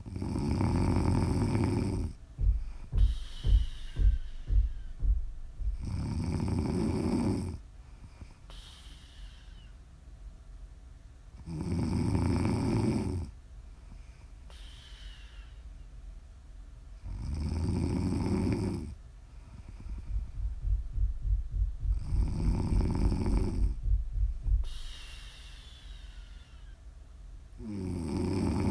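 A woman snoring in her sleep: a loud snore on each breath, about every five to six seconds. Twice, early on and again about two-thirds through, a breath comes out as a longer run of rapid fluttering pulses.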